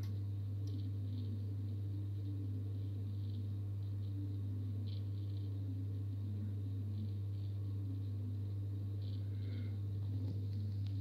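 Aquarium pump humming steadily, with faint bubbling and trickling of water over it.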